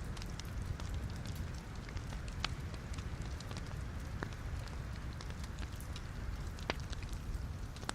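Logs burning in a fireplace: a steady low rumble from the fire with scattered sharp crackles and pops, a handful of them louder than the rest.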